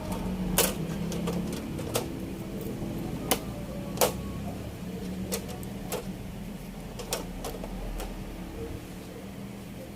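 Irregular sharp clicks and light knocks, about one a second, of LED TV backlight parts being handled and fitted back into the set, over a steady low hum.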